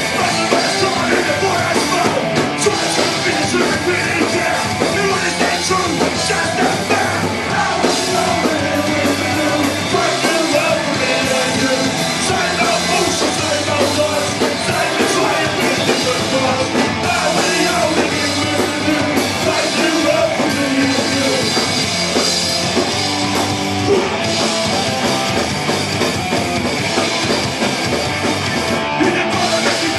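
Punk rock band playing live: electric guitars and drum kit with a shouted lead vocal, loud and steady.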